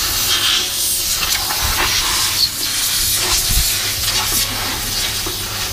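Compressed-air blow gun hissing as it blows out a motorcycle crankcase half, the hiss wavering in strength.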